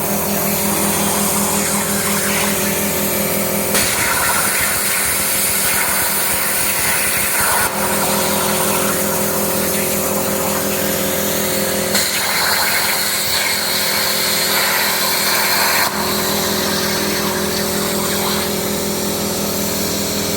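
CNC plasma cutting machine running: the plasma torch cutting with a steady hiss over a constant hum from the machine, changing abruptly every few seconds as separate cuts are spliced together.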